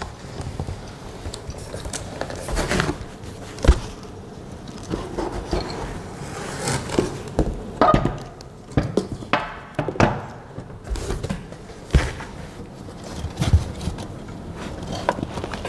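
Unboxing sounds: cardboard rustling and scraping as a box is handled, with occasional sharp knocks as metal printer frame parts are lifted out and set down on a glass table.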